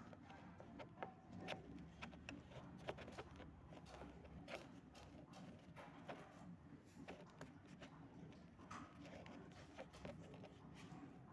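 Near silence with faint handling noise: light, irregular clicks and taps over a low room hum.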